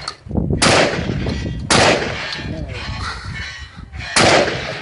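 Three gunshots at a practical shooting match, the second about a second after the first and the third about two and a half seconds later, each followed by a long ringing tail.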